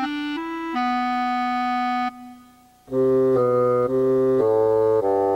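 Instrumental background music: a slow melody of held keyboard-like notes, a brief quiet gap about two seconds in, then lower, fuller notes.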